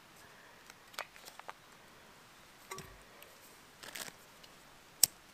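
Faint crinkles and small taps of a solid-fuel tablet being unwrapped and handled, with a short rustle about four seconds in and one sharp click near the end.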